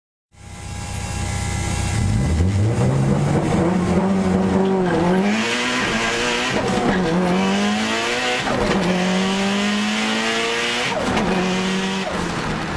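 A car engine accelerating through the gears, its pitch climbing and then dropping sharply at each of about five upshifts.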